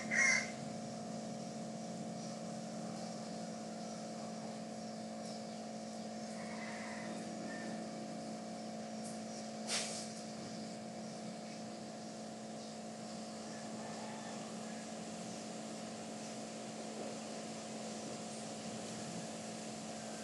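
Steady background hum with a few held low tones. The tail of a rooster's crow sounds at the very start, and there is a single faint click about ten seconds in.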